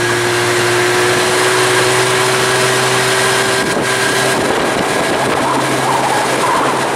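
Boat's outboard motor running steadily as the boat cruises along, under a constant rush of wind and water.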